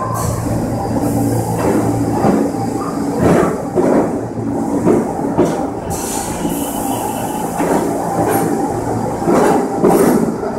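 An R46 New York subway train pulling out and running past at close range: a steady low hum under repeated clacks of the wheels over rail joints.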